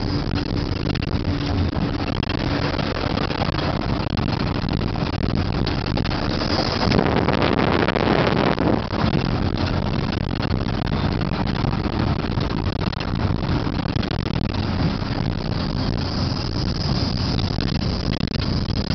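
Steady engine and road noise of a vehicle driving along, heard from inside, with a louder rushing stretch about seven seconds in that lasts a second or two.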